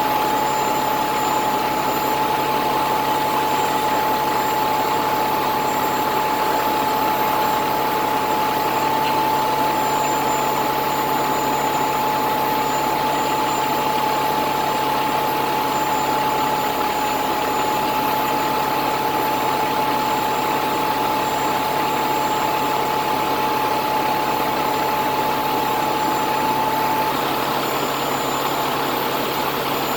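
A crane's engine running steadily at idle, with a steady high whine over it that stops near the end.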